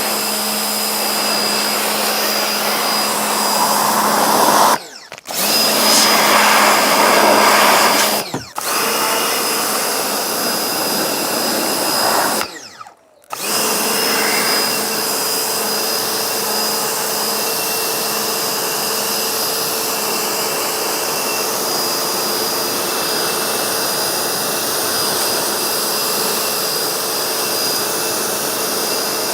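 Vacuum cleaner motor running steadily with a high whine, dropping out briefly three times in the first half.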